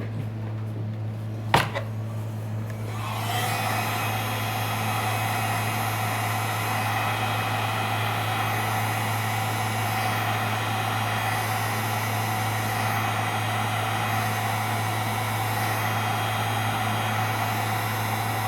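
Electric heat gun switched on about three seconds in and blowing steadily, warming a phone's display to soften its adhesive. A sharp click comes shortly before it starts, and a low steady hum runs underneath.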